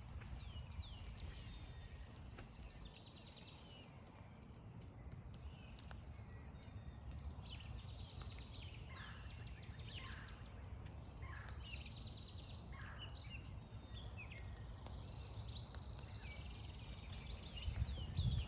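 Several songbirds singing and calling at once: short chirps, quick downward-sweeping notes and fast trills, over a steady low rumble.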